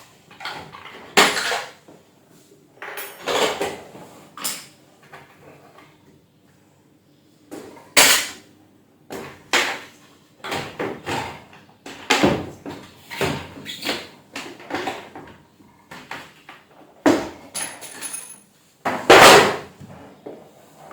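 Irregular knocks, clicks and clatter of hard objects being handled and set down, with the loudest bangs about a second in, about eight seconds in, about twelve seconds in and near the end.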